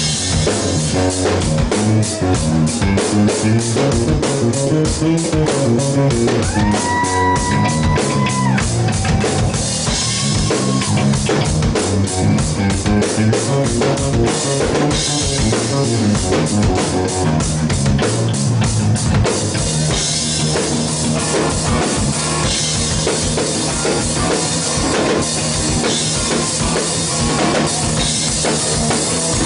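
Live hard rock band playing loud: pounding drum kit, electric bass and electric guitar. A long held note sounds about seven seconds in, and the drum pattern changes about twenty seconds in.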